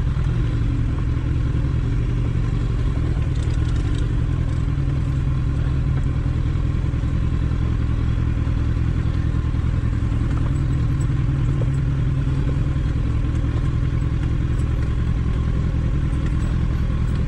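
Kawasaki Ninja 1000's inline-four engine running at an even, steady note as the bike rolls down a rough stony track, with a few light clatters from the rocky surface.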